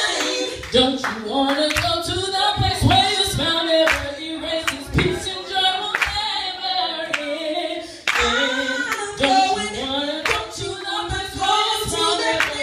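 A singer's voice through a microphone and PA, singing a melody with long bending notes, while the audience claps along steadily at about two claps a second.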